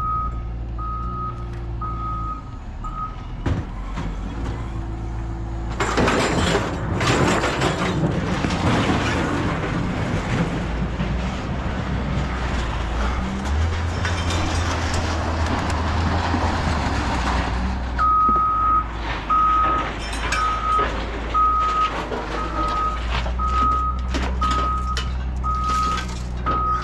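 A heavy vehicle's reversing alarm beeping a little more than once a second over a steady low engine hum. The beeping stops about three seconds in. From about six seconds in there is a long stretch of loud rushing noise, and the engine hum swells around fourteen seconds in. The beeping starts again near the end.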